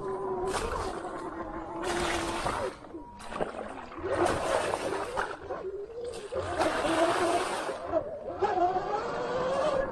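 Sur-Ron electric dirt bike's motor whining, its pitch gliding up and down with the throttle. Several bursts of rushing noise come and go over it.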